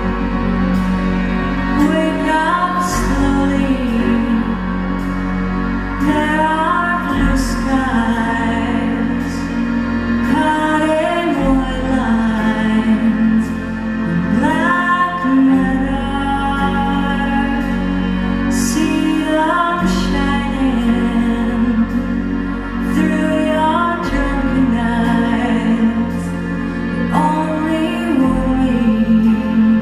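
A slow, tender song performed live by a large band with a woman singing. Deep bass notes change every few seconds beneath the voice.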